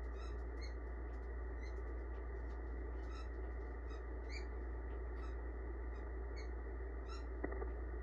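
Icom IC-7300 transceiver on 14.300 MHz upper sideband with no station coming back: steady receiver hiss and band noise, cut off above about 2 kHz, over a low hum. Faint short high chirps come and go throughout, and a single click sounds near the end.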